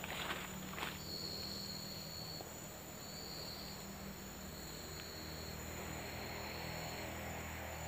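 Forest insects calling: a high, steady trill that comes in stretches of one to two seconds with short gaps, over a faint low hum. A few brief rustles in the first second.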